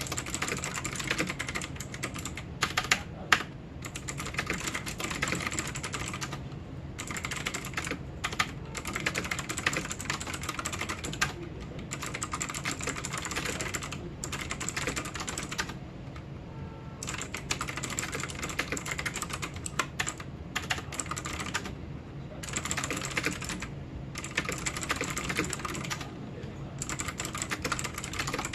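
Typing on a Zenics Titan optical keyboard: fast runs of key clicks broken by a few short pauses, with some louder single clacks about three seconds in.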